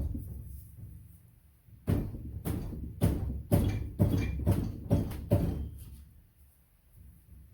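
A series of about eight sharp knocks, roughly two a second, each with a short ring after it, starting about two seconds in and stopping after five and a half seconds, with a single knock at the very start.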